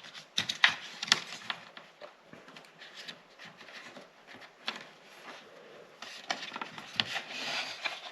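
Hands handling a plastic tail-light housing and its rubber seal: scattered clicks and light knocks with rubbing and scraping between them.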